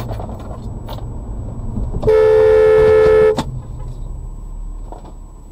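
Car horn sounding in one steady blast of just over a second, a warning honk at a vehicle cutting across in front, over the low rumble of the car driving.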